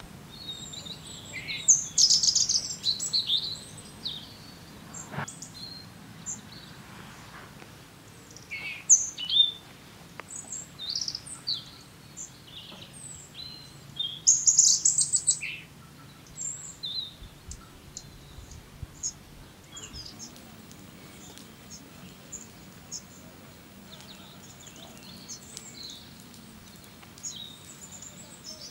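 Wild songbirds chirping and singing in woodland: scattered short whistles and chirps, with bursts of fast repeated trilled notes about two seconds in and again about fourteen seconds in.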